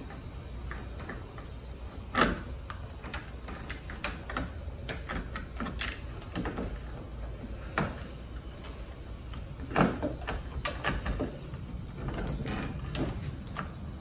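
Irregular clicks, taps and knocks as the interior assembly of a Lockly Vision smart deadbolt is handled and pressed against the door during fitting. The two louder knocks come about two seconds in and again just before ten seconds.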